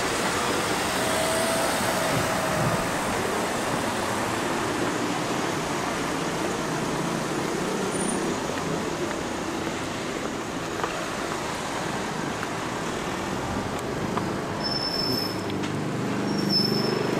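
Steady town street noise with road traffic, growing a little louder near the end.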